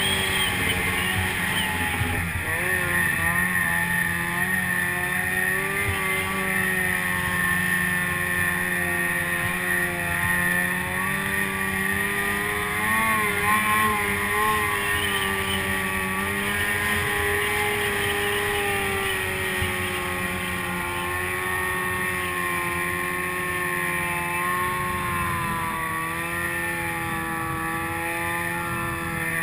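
Snowmobile engine running at steady cruising speed, its pitch rising and falling a little as the throttle is eased on and off.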